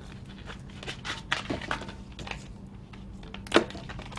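Long latex modelling balloon being twisted by hand: rubber squeaking and rubbing in short, irregular squeaks, with one sharper, louder squeak about three and a half seconds in.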